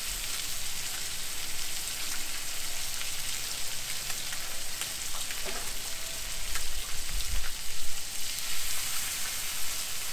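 Striped bass fillets sizzling in melted butter in a hot skillet: a steady hiss with faint crackles. A few low bumps come about seven seconds in.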